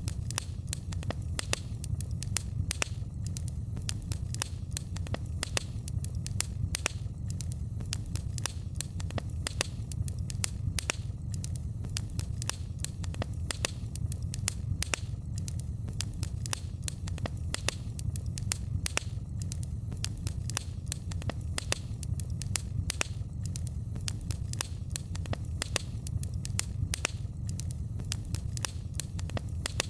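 Wood fire crackling in a fireplace: frequent, irregular sharp pops and snaps over a steady low rumble of the flames.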